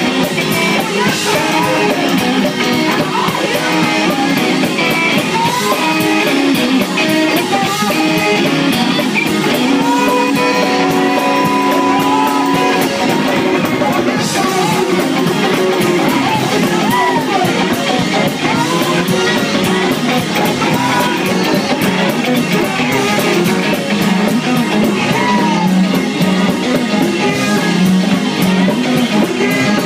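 Gospel praise-break music from a church band, with a steady driving beat and voices singing over it.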